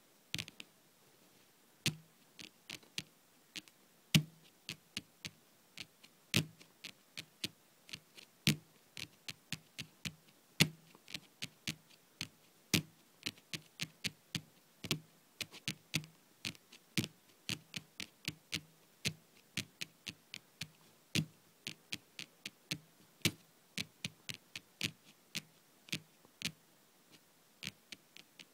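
Long-nailed fingers tapping on a table in an irregular stream of loud and soft taps, about three or four a second. Some taps are sharp nail clicks and others have a duller thud.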